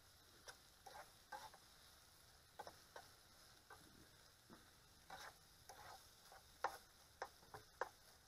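A spatula stirring sliced sausages, peppers and onions in a frying pan: quiet, irregular clicks and scrapes against the pan, one or two a second, over a faint steady hiss.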